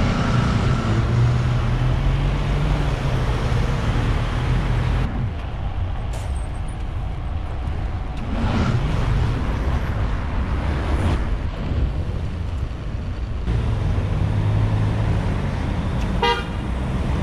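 Roadside traffic: cars going past one after another, engines and tyres swelling and fading, with a short car-horn toot near the end.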